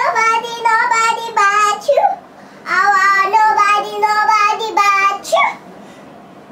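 A toddler girl singing into a handheld microphone: two short sung phrases of held notes stepping up and down, with a brief pause between them, then a quick rising vocal slide.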